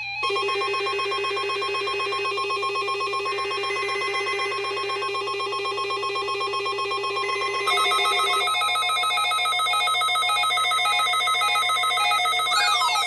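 Weather radio warning alarm test: a steady, continuous alarm tone sounds together with a buzzing alarm, and both stop about eight and a half seconds in. From about eight seconds in, weather alert receivers take over with rapid pulsed beeping, and near the end a rising-and-falling siren-like sweep joins.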